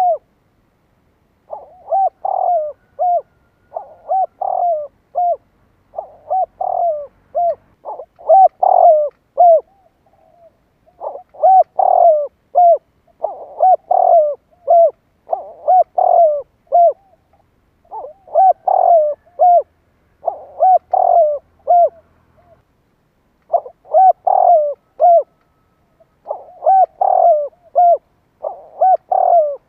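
Spotted dove cooing: about a dozen loud phrases, each a quick run of several short hooting coos, following one another with brief pauses.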